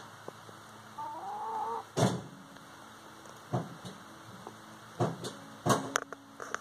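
A hen gives one wavering, pitched call lasting about a second, starting about a second in. Several loud, sharp thumps follow, the loudest sounds here.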